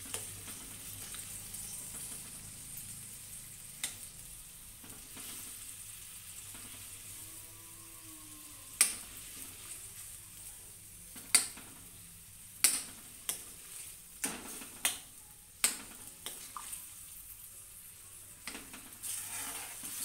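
A steel ladle stirs a chickpea and potato curry cooking in an iron kadai, breaking up the potato pieces. The curry sizzles softly throughout. The ladle strikes the pan in sharp clinks, once about four seconds in and then in a run of about eight from roughly the middle of the stretch.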